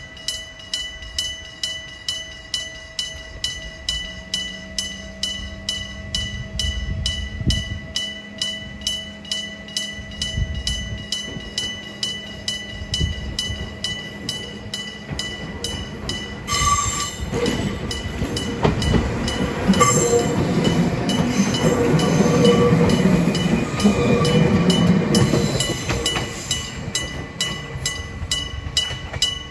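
Electromechanical bell of an old-style level crossing ringing steadily, about two strokes a second, until it cuts off near the end. From about halfway a former Keio Inokashira Line electric railcar rolls through the crossing, its wheels rumbling and clattering loudest in the later part before fading.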